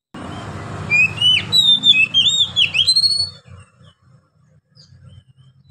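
Oriental magpie-robin singing a short burst of loud whistled notes in quick rising and falling sweeps, lasting about two seconds, over a low hum that begins suddenly at the start.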